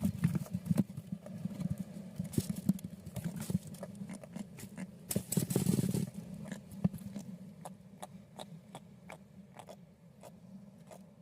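Cast net and freshly caught mackerel being handled: a dense crackle of taps and clicks over a steady low rumble, thinning to scattered clicks after about six seconds.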